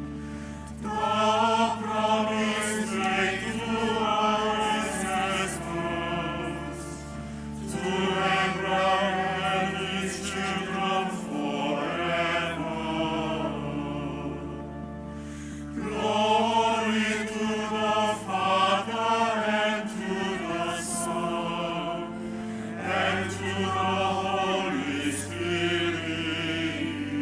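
Choir singing a slow chant in phrases over held low chords that change about every seven or eight seconds.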